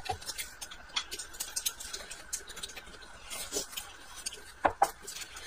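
Close-up eating sounds: chewing and wet mouth smacks, with scattered soft clicks and a couple of sharper clicks near the end.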